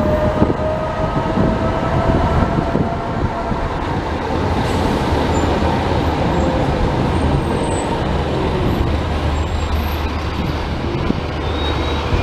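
Running noise of a Budapest tram heard from on board: a steady rumble and hum of wheels and traction equipment, with a faint electric motor whine rising slightly in the first few seconds and then fading.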